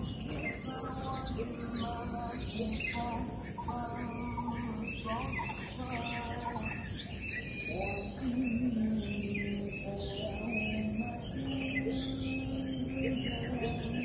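Wild birds chirping and calling with many short, quick notes throughout, over a steady high insect drone. A low wavering hum comes and goes, strongest in the second half.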